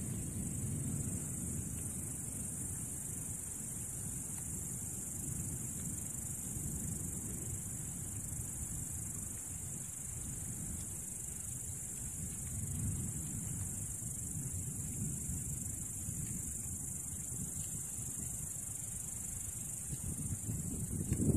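Crickets chirring in one steady, high-pitched drone, with a low, uneven rumble underneath that swells and fades.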